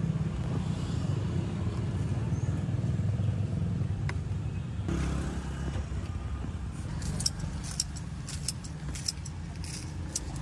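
Low, steady engine rumble of road traffic, with light clicks and taps of utensils and containers in the second half.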